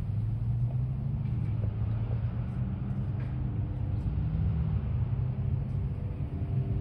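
A motor vehicle engine running close by over road traffic: a steady low rumble with a low hum that shifts slightly in pitch.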